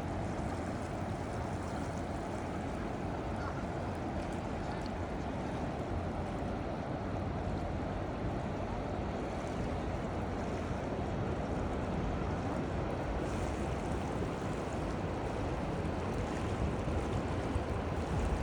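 River water flowing, a steady rush of water that keeps up without a break.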